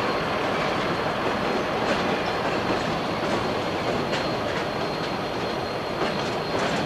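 Freight train rolling past on the rails, a steady rumble of wagons and wheels, with a few sharp clicks as the wheels cross rail joints.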